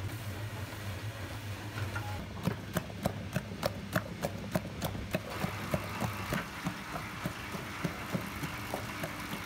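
Rice-dough kneading machine running with a low motor hum. About two seconds in the hum gives way to rapid clicking, about four a second, and from about five and a half seconds a steady hiss.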